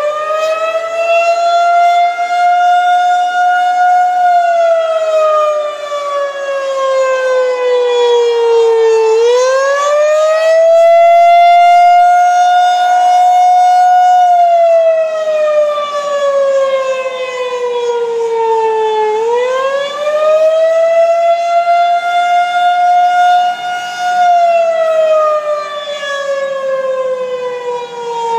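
Outdoor tornado warning siren sounding in a scheduled test. Its pitch rises quickly, holds, then falls slowly, a rise-and-fall cycle that repeats about every ten seconds.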